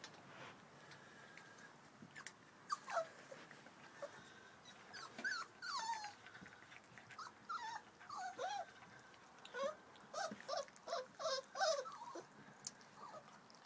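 Four-week-old puppies whimpering and whining: short, high cries that mostly fall in pitch, coming in quick runs from about three seconds in and thickest near the end.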